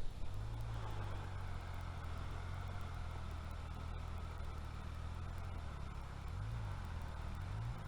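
An engine running steadily, with two brief rises in pitch near the end.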